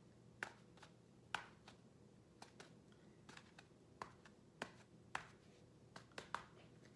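Faint, irregular soft taps of a cardboard-tube stamper being pressed onto paper and dabbed into paint on a paper plate, a dozen or so over several seconds.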